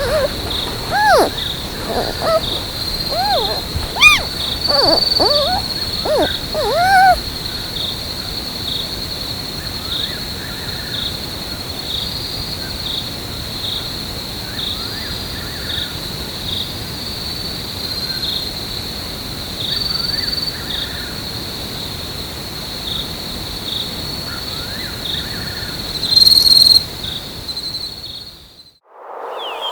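A steady, high-pitched insect chorus of cricket-like trilling runs throughout, with short rising-and-falling animal calls over it in the first seven seconds. There is a brief louder burst near the end, then the sound fades out.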